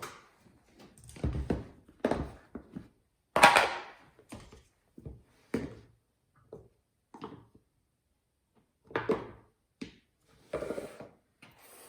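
Kitchen handling sounds: a string of separate knocks and thunks of things set down and moved on a counter, the loudest about three and a half seconds in.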